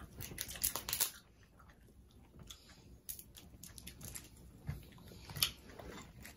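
Boiled crab and shellfish shells being cracked and pulled apart by hand, with chewing: irregular small clicks and crackles, a cluster in the first second and the loudest snap about five seconds in.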